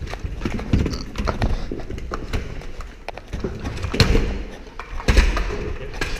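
Quick footsteps and thuds on a hard floor, with clicks and knocks of gear, as a player moves fast; the sharpest knocks come at about four seconds and five seconds in.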